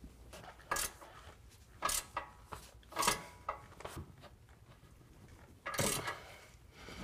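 18 mm ratcheting wrench tightening a truck's body mount bolt: a few short metallic clicks and rasps about a second apart, the longest and loudest one about six seconds in.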